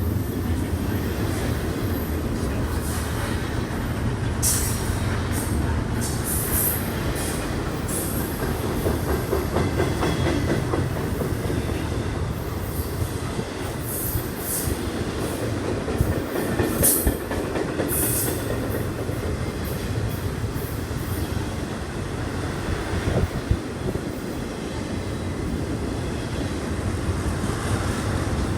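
A train rolling past: a steady rumble of cars on the rails, with short high wheel squeals now and then in the first two-thirds.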